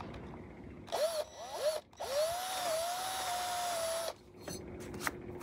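Cordless drill triggered in two short bursts, its motor whining up in pitch each time, then held for about two seconds at a steady speed before stopping.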